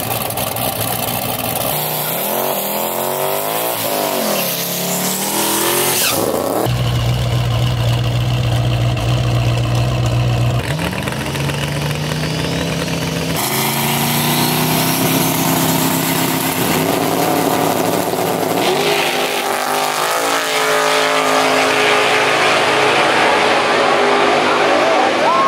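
Drag race cars' engines, one a twin-turbo small-block Chevy V8, revving up and down in short bursts, then holding a steady low drone. Near the end they run at full throttle as the cars launch down the track.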